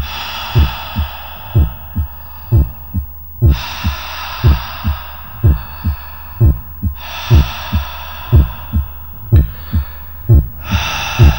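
A heartbeat sound effect: paired low thumps, lub-dub, about once a second, under long breaths that swell and fade every few seconds.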